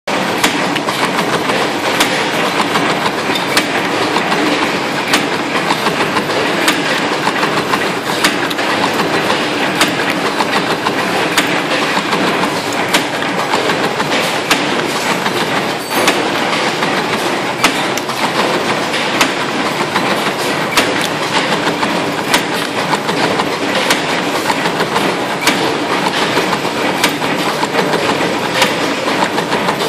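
Damol FMU 1.7 CNC wire-forming machine running, feeding and bending 1.40 mm wire: a steady mechanical clatter with sharp metallic clicks recurring about every second.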